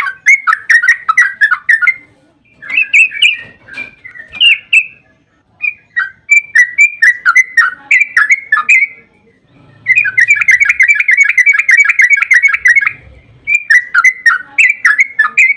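Yellow-vented bulbul (trucukan) singing phrases of quick, bubbly notes with short pauses between them. From about ten seconds in it delivers a long, rapid trill, the 'ropel panjang' that bird-keepers play to get other trucukan to answer.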